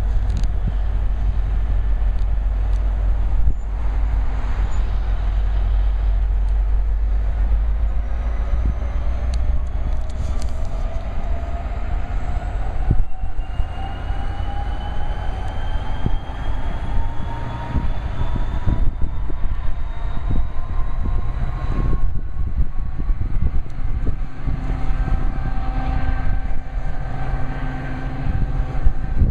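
MBTA commuter rail train in motion: a heavy, steady rumble, with a whine that climbs slowly in pitch over several seconds before levelling off.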